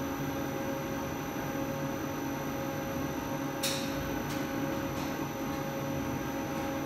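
Plastic compound extruder running steadily: an even machine hum with several steady tones over a low rumble. A brief high hiss about three and a half seconds in.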